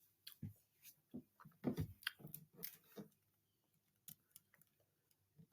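Near silence: quiet room tone with scattered faint clicks and brief soft noises.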